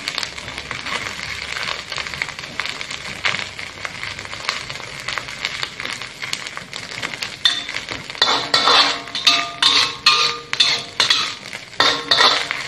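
Metal spatula scraping and turning strips of vegetarian mock meat in a hot oiled wok, over a steady sizzle of frying. The scraping strokes come quicker and louder in the last few seconds.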